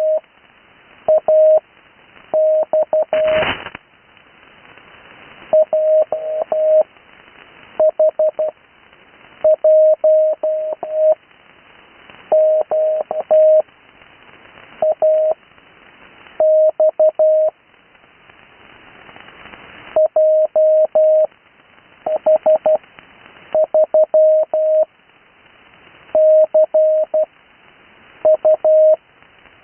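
Morse code (CW) on the 80 m amateur band: a single steady tone keyed on and off in quick groups of dots and dashes, sending radio call signs, with faint band hiss in the gaps. There is a brief crackle about three and a half seconds in.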